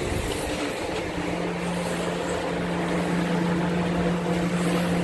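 Inflatable air dancer's electric blower fan running with a steady droning hum, a low steady tone settling in about a second in, over a noisy rush of air.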